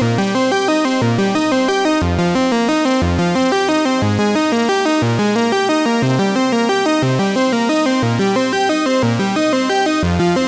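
Background music: electronic synthesizer and keyboard track with a steady, regular bass pulse and quick repeating notes.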